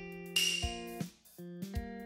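Background music: plucked guitar chords, changing about every half second with short breaks between phrases. A brief swishing noise comes in about a third of a second in.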